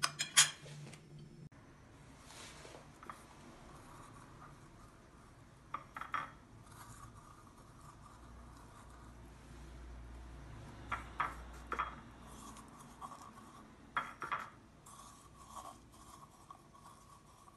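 A metal spoon clinking and scraping on a porcelain plate, then a few light knocks as hollowed zucchini pieces are handled and stood on a plate, over a faint steady hum.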